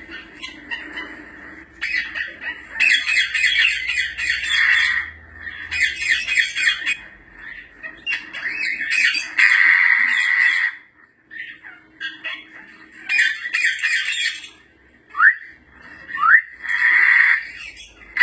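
African grey parrots giving a series of harsh, raspy calls, one every few seconds, with two short rising whistles shortly before the end.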